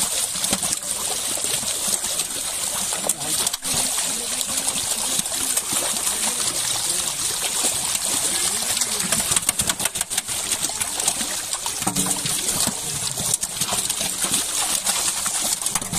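Many large fish thrashing at the surface inside a drawn fishing net, making a continuous churning splash dotted with many short slaps of water.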